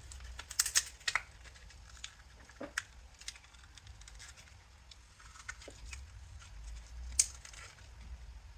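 Scattered small clicks and taps of hands handling laptop parts and memory modules while RAM is installed, with a few sharper clicks about a second in and again near seven seconds.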